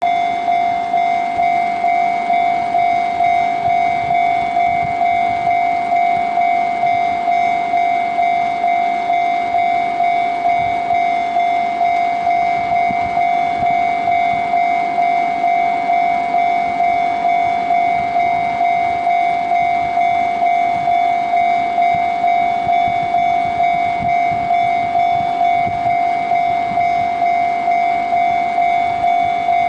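Japanese level-crossing warning bell ringing steadily, an electronic clanging tone repeating about one and a half times a second.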